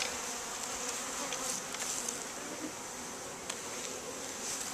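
Honeybees buzzing around a hive they have just been installed into from a package: a steady hum of many bees in flight, with a few faint clicks.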